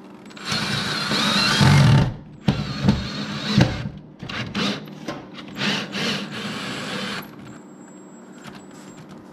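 Power drill driving self-tapping Tek screws into the firewall: one long run about half a second in, then several shorter bursts, stopping about seven seconds in.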